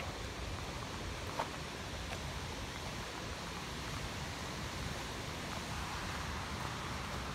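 Steady rushing outdoor noise with one brief click about a second and a half in.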